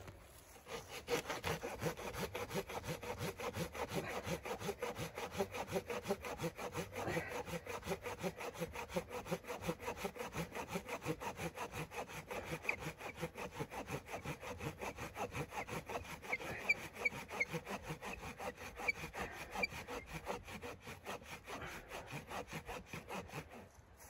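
Hand saw cutting through wood with quick, regular back-and-forth strokes, starting about a second in and stopping just before the end.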